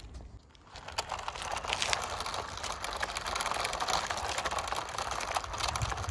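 Toy radio-controlled monster truck running over loose gravel: its small electric motor and plastic gears whirring, with the tyres crunching and clicking over the stones. The sound picks up about a second in.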